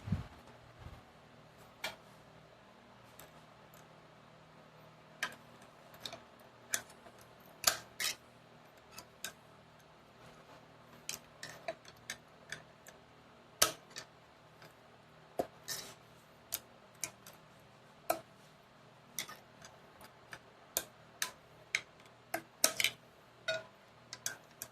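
Irregular light metallic clicks and taps of a flathead screwdriver working a snap ring into its groove on a 4L60E transmission input drum.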